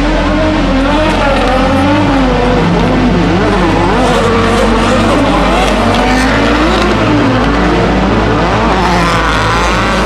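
Drift car engine revving up and down repeatedly under changing throttle, with tyres squealing.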